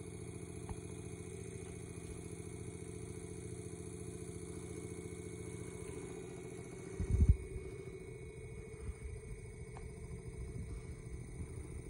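Edison 1893 iron-clad DC battery fan running, its motor and spinning blades giving a steady hum. About seven seconds in comes one loud low bump, followed by uneven low knocks as the wooden turntable under the fan is turned by hand.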